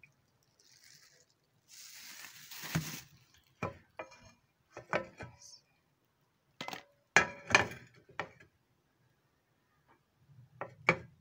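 Scattered clinks and knocks of kitchenware being handled: a plastic oil bottle and a stone-coated grill pan on a stove. A soft hiss runs for about a second, a couple of seconds in, and a quick pair of knocks comes near the end.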